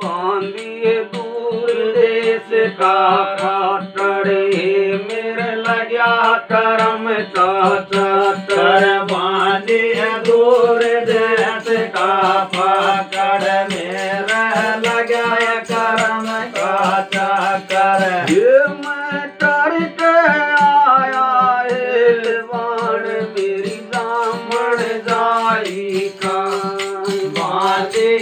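Indian folk singing: a voice sings a melodic line over a steady string-instrument drone, with a continuous beat of sharp clicks.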